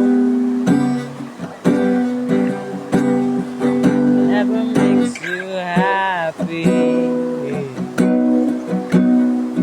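Acoustic guitar strummed, ringing chords struck about once a second. Around the middle a wavering voice-like note joins in.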